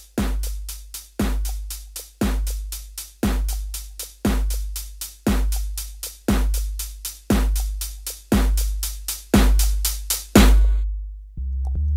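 Music: a drum beat with a deep kick drum about once a second, each with a long low tail, and quicker sharp hits between them. It breaks off about ten and a half seconds in, and a low bass line comes in near the end.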